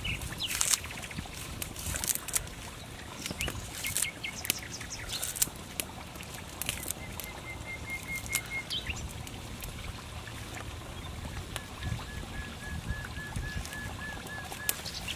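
Scattered sharp clicks and taps of hands working green onions into chili sauce in a coconut-shell bowl, with a coconut-shell spoon scraping in the bowl near the end. A bird calls in the background: two runs of evenly spaced high piping notes, about three or four a second, one in the middle and a longer one near the end.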